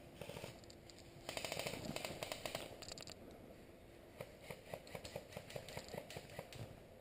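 Long grass and clothing rustling close to the camera as the wearer crawls through a field. About a second in there is a quick run of dense clicking lasting about a second and a half, and scattered single clicks follow later.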